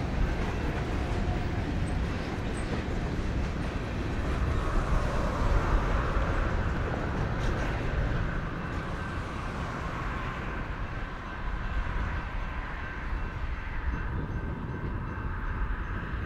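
Freight cars of a passing train rolling on jointed rail: a steady rumble with wheels clacking over the rail joints. A higher whine from the wheels joins about four seconds in.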